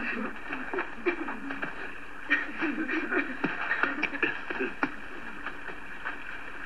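Film soundtrack of a group of people's voices, calling and chattering in short wavering sounds over a steady hiss, with scattered sharp clicks. The voices are busiest in the first five seconds.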